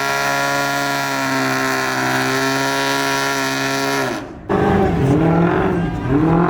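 Car engine held at high, steady revs, as during a burnout or donut, then cut off suddenly about four seconds in. After a short break, an engine revs up and down repeatedly.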